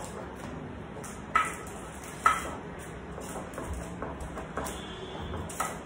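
A spoon pressing and scraping a thick biscuit-crumb, cocoa and butter mixture into a paper-lined bowl, with small scattered taps and two sharp knocks of the spoon on the bowl about one and a half and two and a quarter seconds in.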